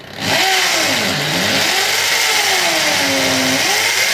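Corded drill with a small masonry bit pre-drilling a pilot hole into a concrete block wall. It starts about a quarter second in and runs loud and steady, its motor pitch sagging and rising as the bit bites into the block.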